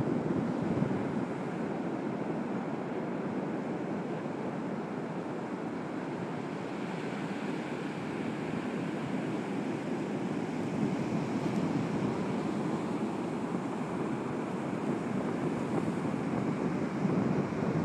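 Ocean surf breaking and washing up the beach as a steady rush, mixed with wind blowing across the microphone.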